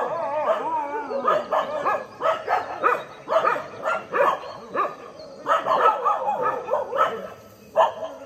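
Street dogs barking at each other in quick repeated barks, the sound of two groups of dogs squaring off. A higher, wavering whine-like call runs through the first second or so.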